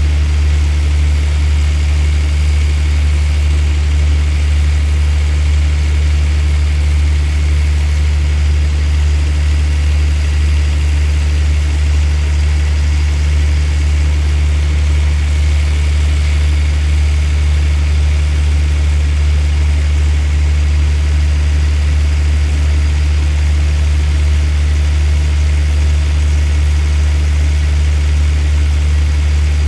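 Diesel engine of a stationary passenger train idling steadily, a deep unchanging drone with a faint higher hum above it.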